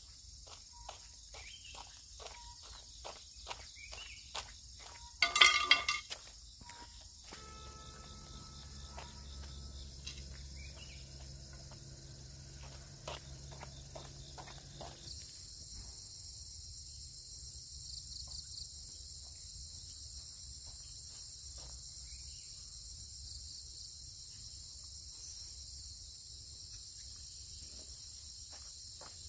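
Insects trilling steadily in a high chorus, louder after about fifteen seconds. In the first several seconds there are footsteps on a concrete road at about two a second, and a short loud burst of noise comes about five seconds in. A low hum with a few steady tones comes in around seven seconds and stops around fifteen.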